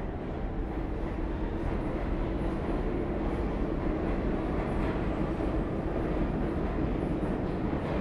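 New York City subway train running, a steady rumble that grows slightly louder.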